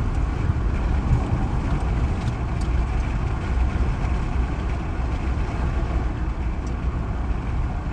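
Steady engine and road rumble of a 2013 Chevrolet Silverado's 5.3-litre V8 pickup on the move, heard from inside the cab. The engine runs evenly with no audible misfire, after a broken spark plug was replaced.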